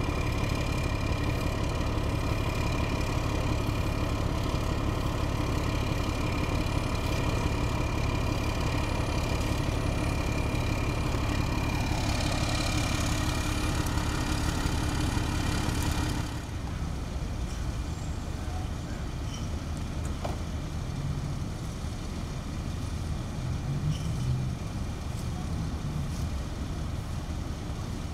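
A motor vehicle engine idling with a steady hum. About sixteen seconds in it cuts abruptly to quieter, even road traffic noise.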